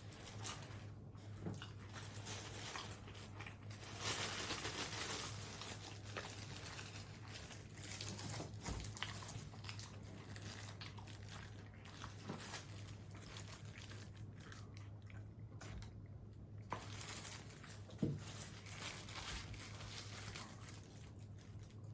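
Close-miked eating of fast food: biting, crunching and chewing, with paper wrapper crinkling at times and scattered small clicks.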